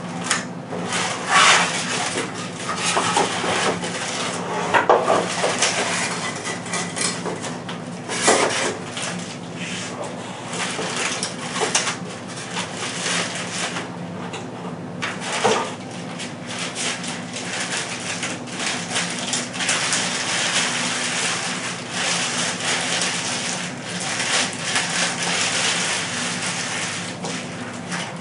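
Packaging being handled: a clear plastic bag crinkling and rustling as it is pulled off an air rifle, with cardboard packing pieces knocking against the long shipping box. There are several sharp knocks in the first several seconds, and steadier rustling later on.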